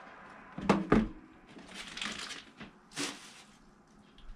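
Two sharp knocks close together, a short rustle, then another knock: items being handled while cooking.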